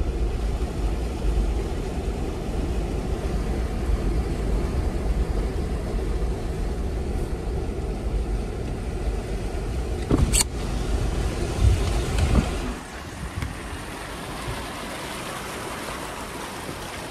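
A Jeep driving through floodwater on a trail: a steady low rumble from the vehicle, with water washing around the wheels. There is a sharp click about ten seconds in. Near the end the rumble drops away, leaving a quieter hiss of water.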